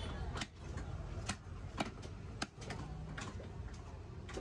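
Knife chopping on a wooden cutting block while a trevally is cut up: sharp, irregular knocks, roughly every half second, over a low background hum.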